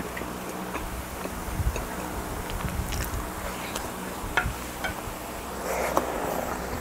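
Close-miked chewing and mouth sounds of a man eating soft macaroni Alfredo, with small wet clicks and smacks scattered through.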